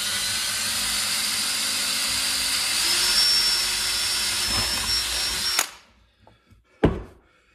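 Cordless drill running steadily as a 15/64-inch bit bores through a plastic snowmobile ski, with a high whine over the motor noise. It stops suddenly about five and a half seconds in, and a single knock follows about a second later.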